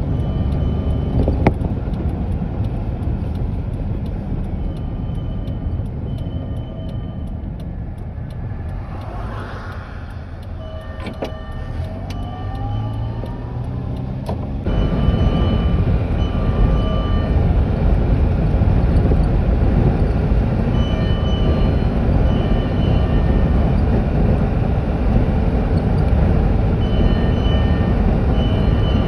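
Motor vehicle running, a steady low rumble of engine and road noise, with faint short high tones coming and going and a brief rising tone near the middle. The rumble gets suddenly louder about halfway through.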